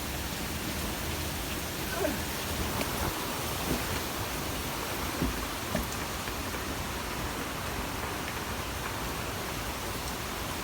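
Steady storm rain falling, an even hiss, with a few faint knocks about two, four and five seconds in.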